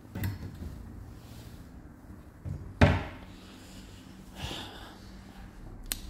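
A single sharp knock about halfway through, with a softer knock just before it and faint handling sounds, over low room noise with a faint steady hum.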